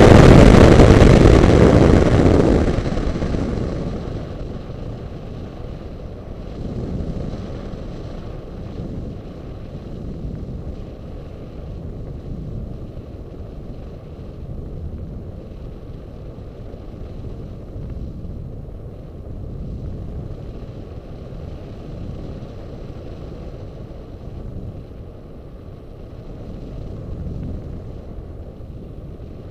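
Air rushing over the microphone of a Diamond 2500 RC model plane's onboard camera in flight. It is loud at first, coming out of a steep banked dive, and dies down over the first three seconds to a steadier, quieter rush with a faint steady whine.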